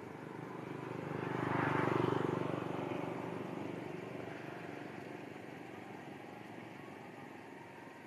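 A motor vehicle passing by on the street: its engine sound swells to a peak about two seconds in, then slowly fades away.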